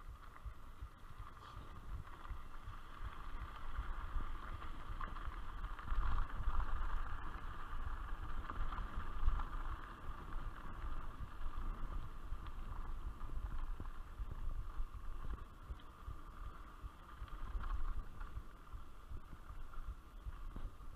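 Mountain bike being ridden over a rough dirt trail: an uneven rumble and rattle of tyres and frame over the ground, with wind buffeting the microphone, loudest for a few seconds about a quarter of the way in.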